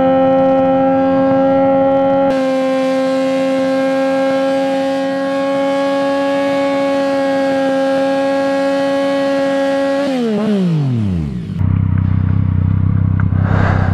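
Yamaha FZ-09 inline-three engine held at high, steady revs during a rear-tire burnout on a worn-out tire. About ten seconds in the revs drop sharply, and the engine settles into a low, rough rumble.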